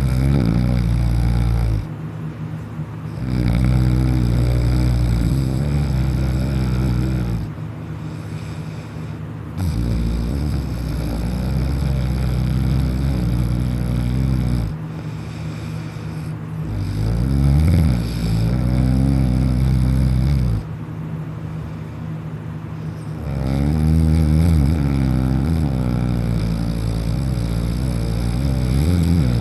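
A person snoring heavily in deep sleep. About five long, loud snores, each lasting several seconds, with quieter breaths between them.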